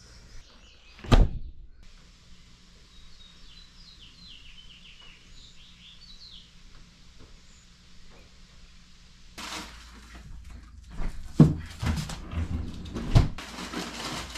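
A single sharp knock about a second in, then a quiet stretch with a few faint bird chirps. From about nine seconds in come rustling and handling noise with several heavy thuds, as wrapped packages of frozen meat are handled and set down.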